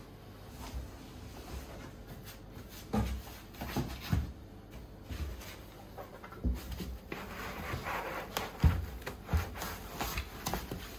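Handling noise from rummaging in a cardboard box of chair parts: scattered dull knocks and bumps of parts against cardboard and foam, then clear plastic wrapping crinkling from about seven seconds in as a wrapped part is pulled out, with one sharper thump near the end.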